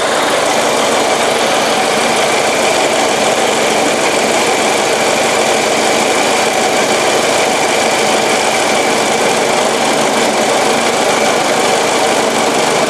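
Ford Model T four-cylinder flathead engine running steadily with no load on it, warming up.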